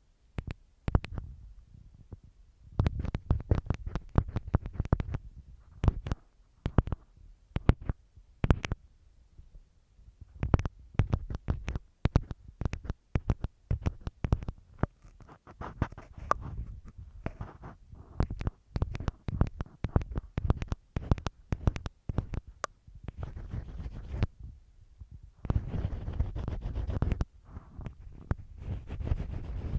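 An ear pick scratching and tapping on masking tape stuck over the microphone. It makes irregular runs of crackly strokes and sharp clicks with a deep rumble under them, broken by short pauses.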